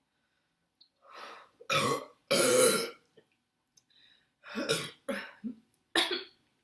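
A woman burping after drinking cola. There is a loud burp about two seconds in, then a longer, lower one just after, and several shorter sounds near the end.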